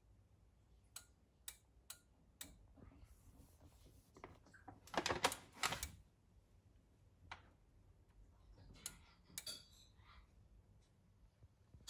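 Denon AVR-X4500H AV receiver clicking as it drops out and comes back on by itself, the sign of its power-failure fault. A few light clicks come in the first two and a half seconds, two louder knocks about five seconds in, and two more clicks near nine seconds.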